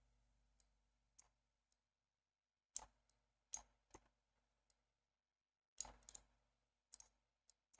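Faint computer mouse clicks, about ten short clicks scattered irregularly, some in quick pairs and clusters, against near silence.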